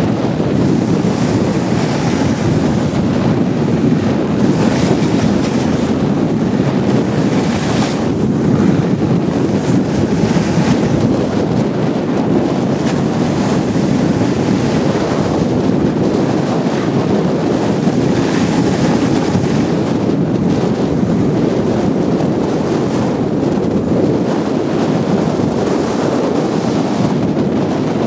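Wind rushing over the microphone of a camera carried down a ski slope at speed: a loud, steady rush that swells and eases, with no voices.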